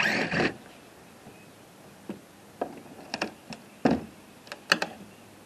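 A cordless impact driver runs for about half a second at the start, backing a screw out of a plywood wall. It is followed by a string of sharp knocks and taps as the cut-out plywood board is worked loose.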